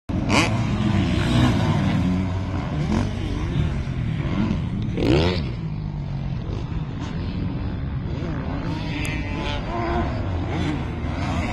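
Four-stroke single-cylinder engine of a 2013 KTM 450 SX-F motocross bike, revving up and down through the gears as it is ridden around the track, with one sharp rising rev about five seconds in.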